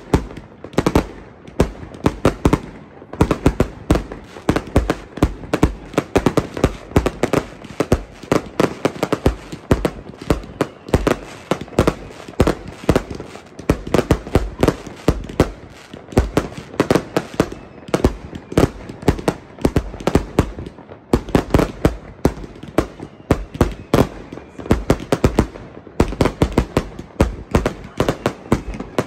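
Fireworks display going off in a continuous barrage: aerial shells bursting overhead in rapid, closely packed bangs, several a second.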